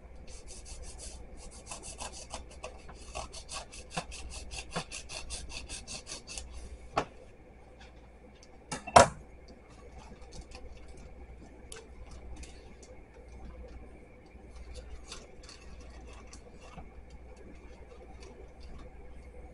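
Chef's knife sawing back and forth through a paper-wrapped sandwich wrap: a quick rasping rhythm of several strokes a second that stops after about six seconds. A sharp knock about nine seconds in is the loudest sound, followed by faint paper rustling as the cut wrap is handled.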